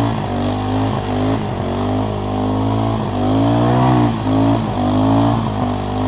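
ATV engine running under load while towing a rider on a rope. Its note rises and falls repeatedly with the throttle.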